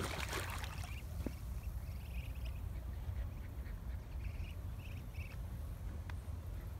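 Water splashing as Muscovy ducks paddle, about the first half-second, then a string of short, soft Muscovy duck calls every second or so.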